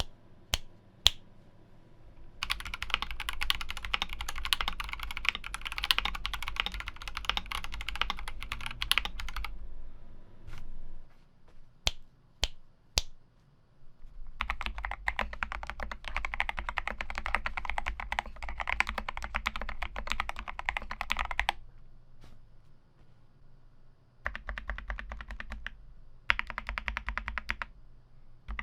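Typing on an Akko 3068B 65% mechanical keyboard fitted with hand-lubed Akko Jelly Purple tactile switches and XDA keycaps: three runs of fast typing with pauses between them, and a few single key presses in the pauses.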